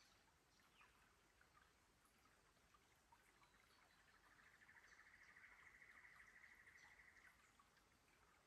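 Faint trickle of a shallow creek over rocks, with scattered small drips. From about three seconds in, a fast high-pitched buzzing trill from a small animal swells for about four seconds and then fades.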